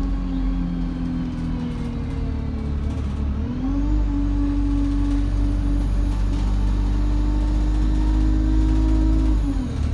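Diesel bus engine pulling away with its turbocharger whistling: after the engine note sinks over the first few seconds, the revs pick up and a thin high whistle rises and holds, then both drop away near the end as the engine eases off.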